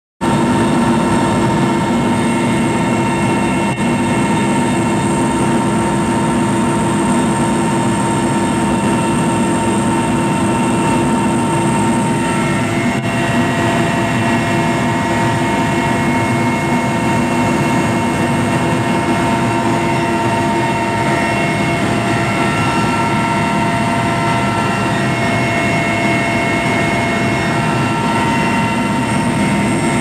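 Mi-8 helicopter's twin turboshaft engines and rotor heard from inside the cabin: a loud, steady drone with several steady whining tones above it.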